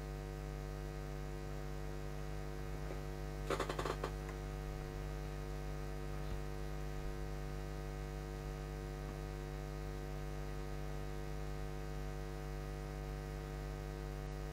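Steady electrical mains hum, a low buzz with a ladder of evenly spaced overtones. A brief faint noise comes about three and a half seconds in.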